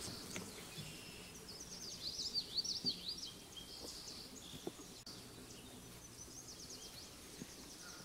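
Songbirds singing in woodland: phrases of quick, high, rising-and-falling notes, one about two seconds in and another near the end, over faint outdoor background noise.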